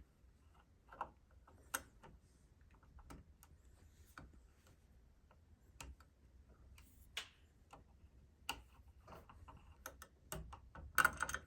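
Faint, irregular clicks and ticks of a small screwdriver turning the tiny screws out of a Kwikset electronic deadbolt's interior cover, with a quick cluster of louder clicks near the end.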